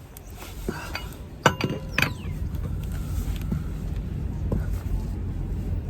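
Metal tools clanking and clinking: two sharp metallic knocks about a second and a half and two seconds in, each ringing briefly, then a few lighter clicks, over a steady low rumble.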